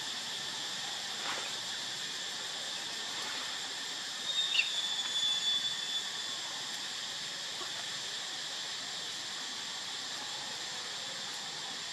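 Steady high-pitched insect chorus. About four seconds in, a louder high call rises over it for roughly two seconds.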